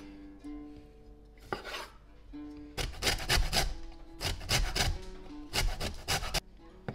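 Lime rind being zested on a metal box grater: runs of quick rasping strokes, starting about three seconds in and stopping a little before the end. A single knife tap on the wooden cutting board comes earlier, over soft background music.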